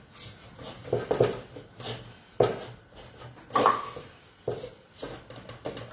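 Wooden rolling pin pressed and rolled over the wires of a pasta chitarra, cutting a thick sheet of dough into tonnarelli. It comes as short strokes about a second apart.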